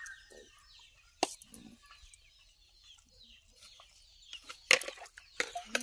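Birds calling, with many short chirps and a few low calls throughout, and several sharp knocks, the loudest near the end.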